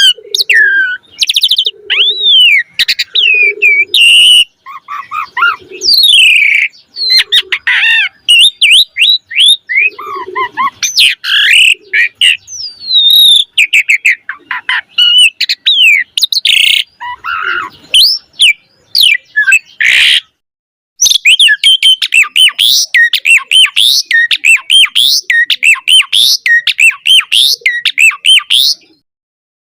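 Asian pied starling (jalak suren) singing a loud, varied song of gliding whistles, harsh chatters and mimicked calls of other birds, with low croaking notes repeated through the first half. After a brief pause about two-thirds of the way through, it goes into a fast run of high chirps.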